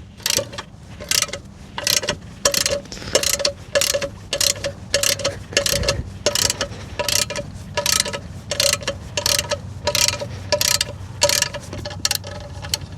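Ratchet wrench with a 12 mm socket clicking in short bursts, about two a second, as it backs out the bolts holding the track tensioner cover plate of a mini excavator.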